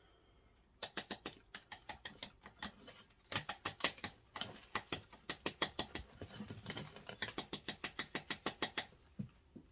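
Lechuza Pon mineral granules clicking and rattling as a plant is potted in them: a quick run of small sharp clicks, about five a second.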